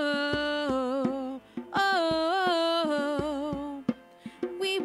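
Worship song's wordless 'oh, oh, oh' refrain: long sung vowels with vibrato in two phrases over a steady beat.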